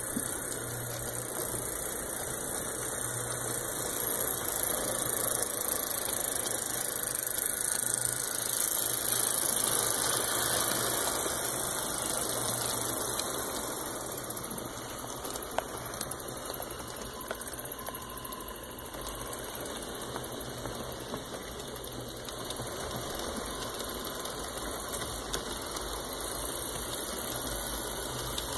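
HO scale model trains running on the layout's track: the steady whir of the locomotive motors with the rattle of wheels on the rails. It grows louder for several seconds in the first half, then eases off.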